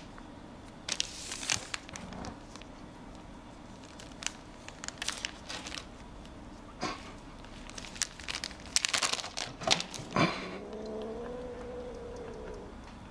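Plastic snack bag crinkling and crackling in sharp bursts as a cat bites and tugs at it. About ten seconds in, a cat lets out one long, low yowl.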